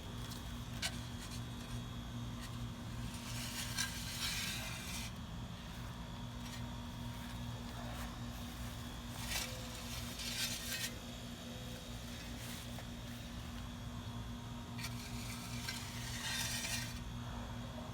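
Lines being scratched into loose, freshly patted soil to mark an X over a grave: three separate scraping strokes, over a steady low hum.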